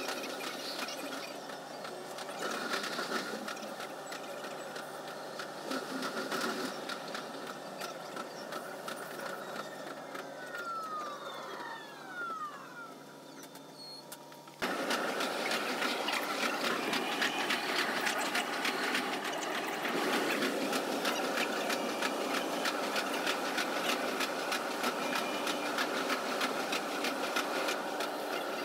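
Running noise of a JR 373 series electric train, heard from just behind the cab window and sped up five times into a fast, dense clatter. A few falling tones come near the middle as the noise dips, then it cuts abruptly to louder, busier clatter.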